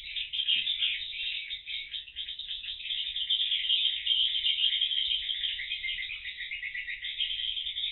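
Swiftlets twittering: a dense, unbroken chatter of rapid high chirps.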